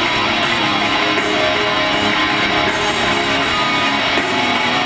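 Music with strummed electric guitar.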